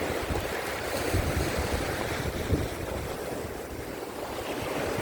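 Sea surf washing against the shore rocks, with strong gusty wind buffeting the microphone.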